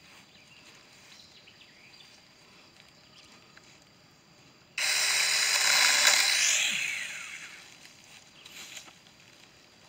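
About five seconds in, a battery-powered mini chainsaw starts buzzing loudly as it cuts into a pine branch. It runs for about two seconds, then winds down with a falling whine.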